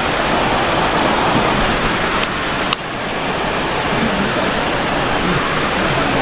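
Steady, loud rushing noise with no distinct events, broken by a short click a little under three seconds in.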